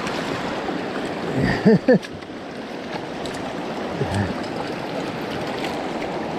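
Steady rush of fast-flowing river water. A brief wordless voice cry comes about one and a half seconds in, and a shorter one about four seconds in.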